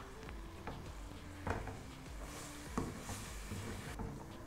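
Steel ladle stirring thick halwa in a non-stick pan, giving a few soft knocks and scrapes against the pan over a faint steady hum.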